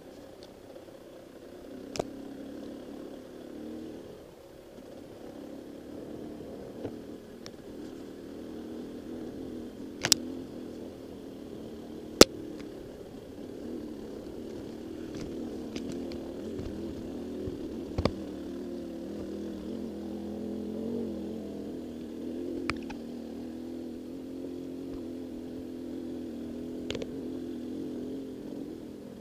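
Dirt bike engine running steadily, its pitch wavering up and down with the throttle, with a handful of sharp knocks over it, the loudest about twelve seconds in.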